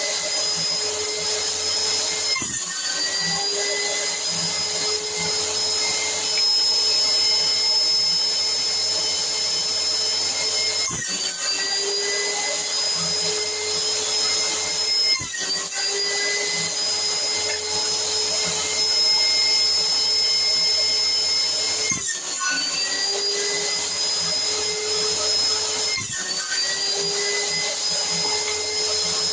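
Electric motor of a homemade jointer and table saw running at steady speed with a high whine. About five times its pitch drops sharply and then climbs back up over a second or two.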